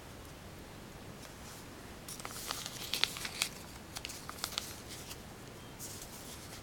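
A folded piece of origami paper handled in the fingers, giving short paper crinkles and rustles, mostly between about two and five seconds in.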